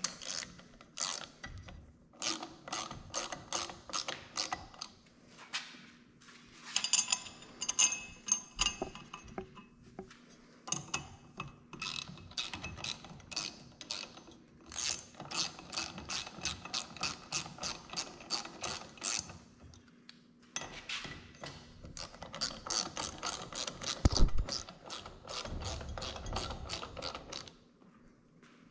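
Hand ratchet wrench clicking in quick runs of about three to four clicks a second, with short pauses between runs. About five seconds before the end there is a single louder knock.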